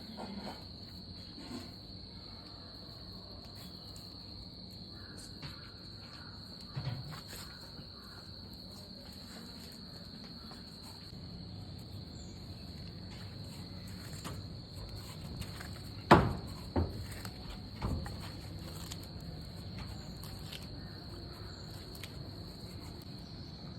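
Steady high-pitched insect trill, likely a cricket-type chorus, under low background noise, with a few sharp knocks: one about 7 seconds in and a cluster about two-thirds of the way through, the first of those the loudest.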